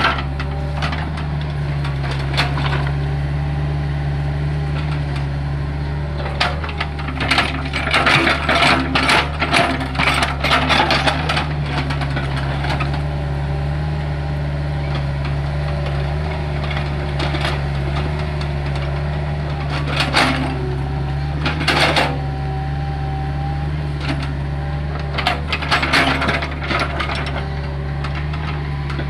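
Hitachi hydraulic excavator's diesel engine running steadily, with repeated bursts of knocking and scraping as the bucket works dry, hard soil. The knocking is densest in a stretch a few seconds in, then comes in shorter bursts twice around the middle and once more near the end.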